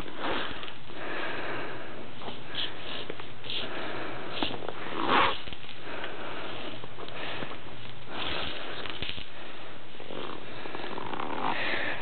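Plastic insulation, already slit by the stripping machine, being pulled by hand off copper wire: a steady rubbing, scraping noise with a few brief louder swishes.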